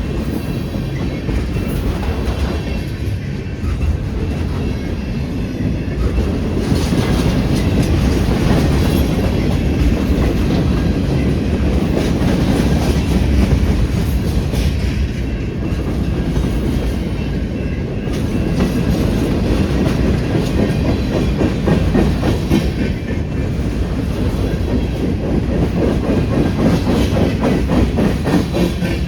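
Freight cars of a passing freight train rolling by, steel wheels clacking over the rail joints over a steady, loud rumble.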